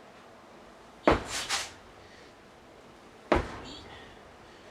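Sledgehammer strikes: two heavy blows about two seconds apart, the first followed by a brief clatter.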